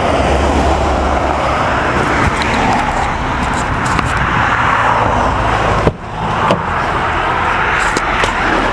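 Road and wind noise heard from inside a moving car: a steady rushing with a low rumble underneath, dipping briefly about six seconds in.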